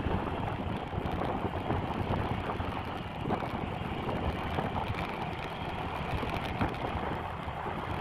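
Wind buffeting the microphone over a low rumble of road and vehicle noise while riding; no sudden sounds.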